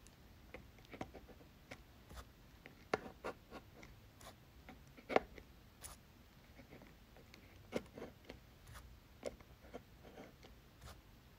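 A plastic store card scraping across wet watercolour paper in short, faint scratchy strokes, lifting paint to give texture to painted rocks.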